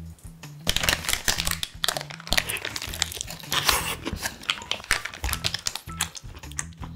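Paper sandwich wrapper crinkling and rustling in quick, dense crackles as a wrapped toast is picked up and handled, starting about a second in.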